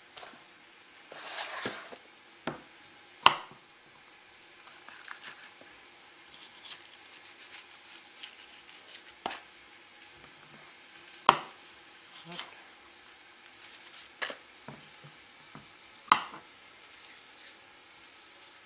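Kitchen knife knocking on a wooden chopping board as bell peppers are cut and cored: about a dozen short, sharp knocks at irregular intervals, a few much louder than the rest, with a brief rustle of handling about a second in. Underneath, a faint steady sizzle of onions frying in olive oil.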